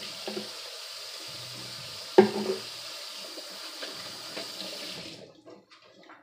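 Kitchen sink faucet running while hands are washed under it; the water shuts off about five seconds in. A single sharp knock sounds about two seconds in.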